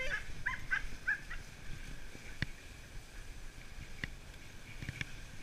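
Excited sled dogs yelping a few times in the first second or so as the team pulls off. After that comes the low noise of the sled gliding over snow, with a few sharp clicks.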